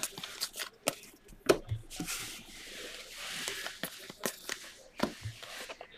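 Trading cards being flipped and slid through the hands: soft clicks and a light rustle of card stock, with a few faint taps.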